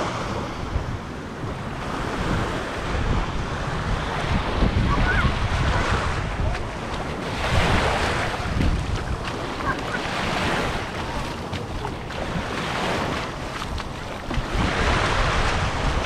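Sea waves washing onto the shore, swelling and falling back several times, with wind buffeting the microphone in a low rumble.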